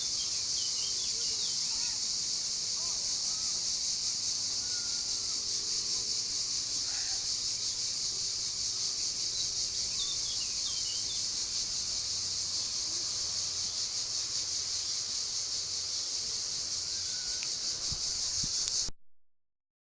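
Cicadas buzzing in a continuous, loud, high-pitched drone, with a few faint bird chirps over it; the sound cuts off suddenly near the end.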